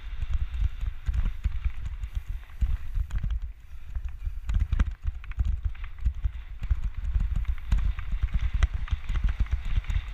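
Mountain bike running fast over a rough dirt trail, heard through a camera mounted on the bike: a heavy low rumble with irregular knocks and rattles as the bike bounces over the ground.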